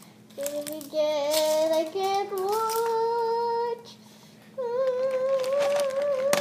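A young girl singing a wordless tune in long held notes that climb in steps, breaking off briefly near the middle, then holding one higher wavering note. Crackling of the wrapper she is tearing open runs under the singing.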